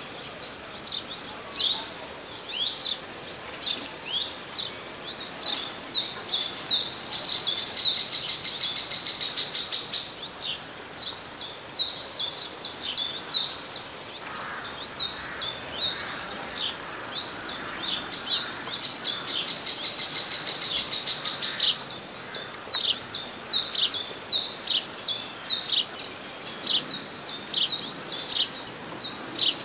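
Small songbirds chirping and calling, many short high notes overlapping almost without pause, with a buzzy trill twice.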